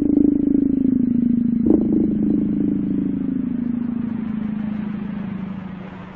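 Ninja countertop blender motor running steadily as it blends a liquid mixture, its hum slowly dropping in pitch and fading toward the end. A short knock sounds about two seconds in.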